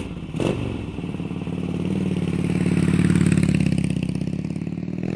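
Motorcycle engine running with an even firing pulse. It grows louder toward the middle, then eases off, and its pitch begins rising near the end as it revs up.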